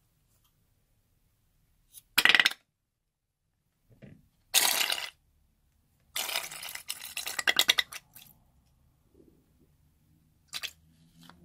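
Slime being squeezed out through the neck of a balloon into a plastic bowl: three loud squirts, each a rapid crackle of small pops, the last lasting about two seconds, then a brief faint one near the end.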